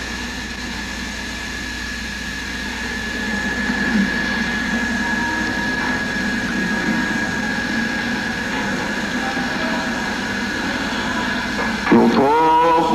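Steady drone: a rushing hum with one held high tone, a little louder from about three seconds in. Near the end a single voice begins a melodic chant.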